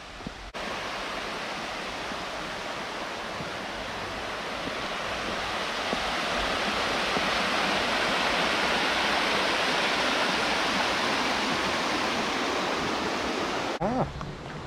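Rushing water of the River Rivelin, a steady even rush that grows somewhat louder toward the middle and stops abruptly near the end.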